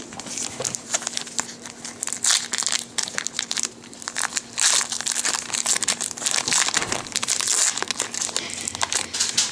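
Foil wrapper of a Yu-Gi-Oh! Metal Raiders booster pack being crinkled and torn open by hand: dense, irregular crackling and rustling of foil.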